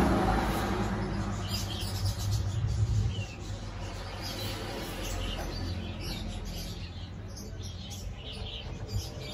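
Small birds chirping: many short, high chirps scattered throughout, over a low rumble that drops away about three seconds in.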